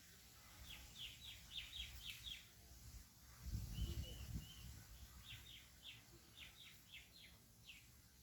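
A bird calling faintly: two runs of short, quick, downward-sweeping chirps, about four a second, with a few short level notes between them. A brief low rumble comes just before the middle.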